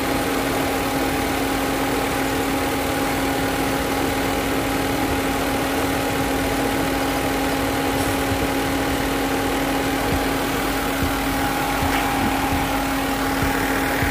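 SOHC 12-valve car engine idling steadily with a constant hum and tone, its freshly refilled cooling system still purging air. The newly fitted cheap water pump runs slightly noisy, as if something is catching in it.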